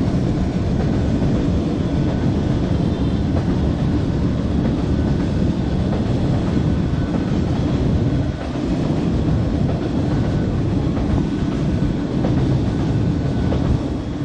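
Train passing close by: a loud, steady low rumble that dips briefly about eight seconds in.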